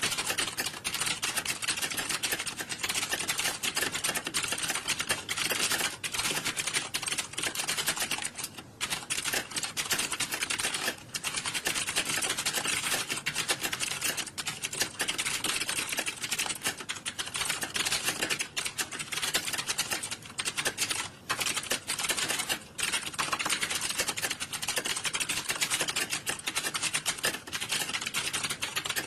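Computer keyboards being typed on steadily, a dense clatter of key clicks with a few brief lulls.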